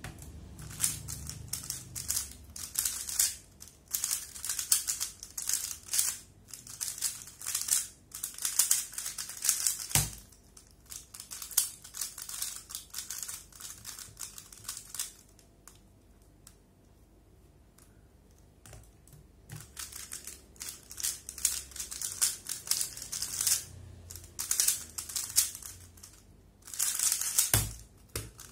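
3x3 speed cube turned very fast by hand, its plastic layers clicking and clacking in rapid runs through two solves. Each run ends with a sharp knock, about ten seconds in and again near the end, with a quieter pause between the solves.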